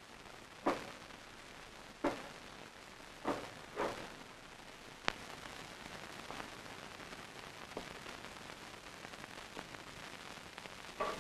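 Five slow, sharp knocks spread over the first five seconds, then only the steady hiss of an old film soundtrack.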